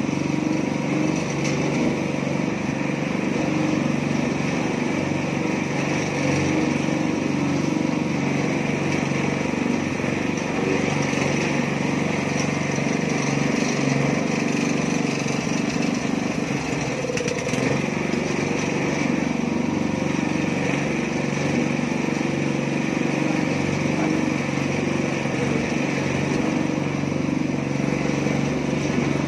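Small petrol engine of a mini concrete mixer running steadily at constant speed.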